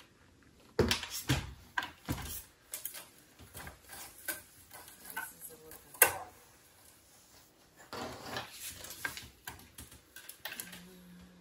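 Hard plastic parts of a Brother SE625 sewing machine being handled: irregular clicks, taps and knocks, with the sharpest knock about six seconds in.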